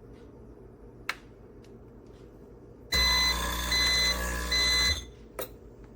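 Three short, evenly spaced electronic beeps over a loud hum that starts about three seconds in and stops two seconds later, with a couple of light clicks before and after.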